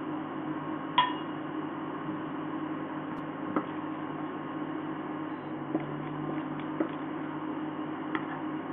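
Steady electrical hum of an induction cooktop heating a pan of oil, with one sharp metallic clink about a second in and a few light taps of a wooden spatula in the pan as whole spices fry.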